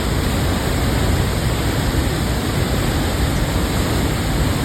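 Rushing floodwater, a loud, steady, unbroken rush.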